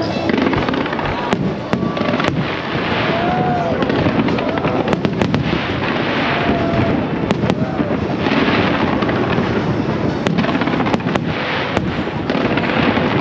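Aerial fireworks going off: sharp bangs at irregular intervals, about a dozen of them, over a continuous noisy din that swells every few seconds.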